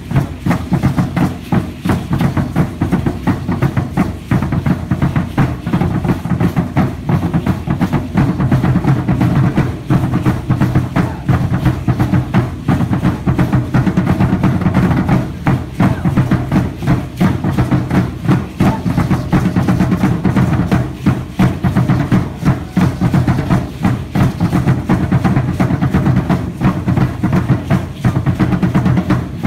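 Fast, steady drumming on a deep drum that drives the Aztec dance, its beats running on without a break.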